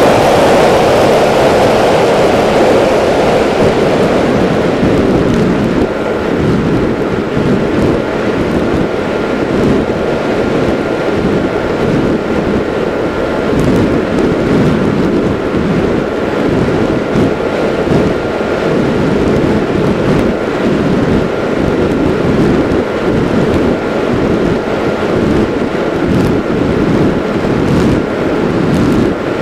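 Wind buffeting the microphone of an RC flying wing's onboard camera in fast flight, a loud, steady, fluttering rush, with the faint steady whine of the electric motor and propeller beneath it.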